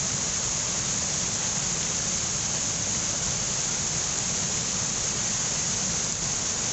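Water pouring over a small waterfall and splashing into fast white water below, a steady, even rush with a lot of hiss.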